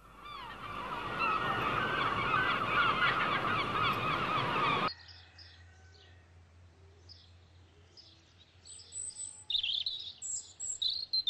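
A dense chorus of bird calls with many short falling cries, which cuts off abruptly about five seconds in. Then a small songbird chirps and trills high and fast, louder near the end.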